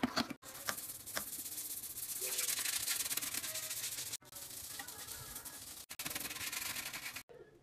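Toilet brush scrubbing a porcelain toilet bowl, the bristles rubbing in a steady scratchy noise that stops and starts abruptly a few times.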